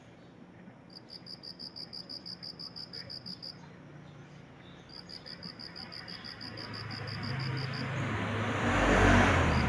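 A cricket chirping in regular pulses, about six a second, in two long trills broken by a pause. From about six seconds in, a passing car grows louder, peaks near the end and drowns the crickets.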